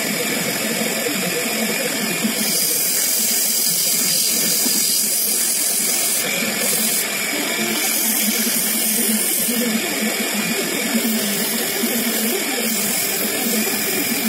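Electric water pump motor running steadily, spinning a wooden fishing-lure body in a drill chuck on its shaft, while sandpaper is held against the turning wood. The sanding adds a hissing rasp that grows louder in a few stretches.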